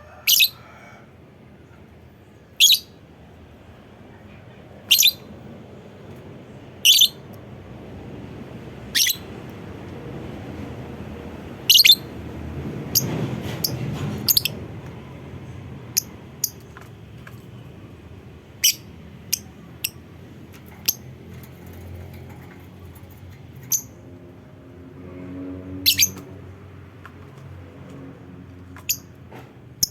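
Lovebird giving short, sharp high calls. At first they come about one every two seconds, then shorter ones follow at irregular spacing, some in quick pairs.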